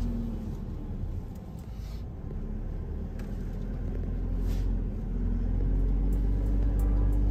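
A camper van's engine and road rumble while driving. The rumble eases off early, then builds again, with the engine note climbing about five seconds in.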